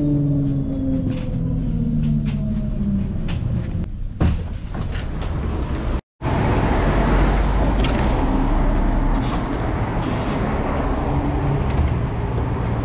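Electric tram's running whine falling slowly in pitch as the tram slows, heard from inside the car, with a click about four seconds in. After a sudden break about halfway through comes a louder, steady rumble and noise of trams standing at a stop.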